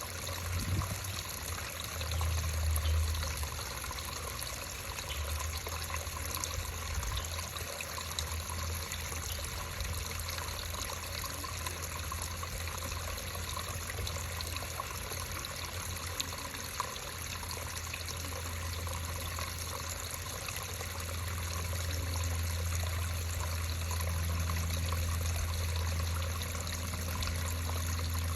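Creek water trickling and flowing steadily, with a low rumble underneath.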